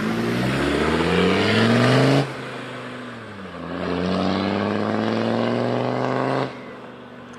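Land Rover Discovery 2 Td5 diesel engine accelerating hard: the revs climb, drop suddenly at a gear change about two seconds in, then climb again before the throttle is lifted and the sound fades. It is being run hard on a test after new injector seals, without reaching the rev limiter.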